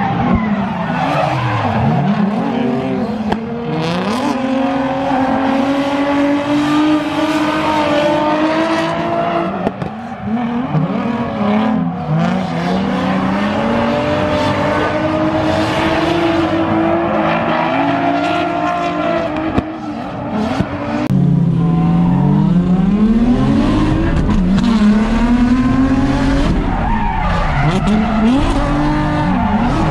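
A car engine revving hard while drifting, its pitch climbing and dropping again and again as the throttle is worked, over screeching tyres. It gets louder about two-thirds of the way through.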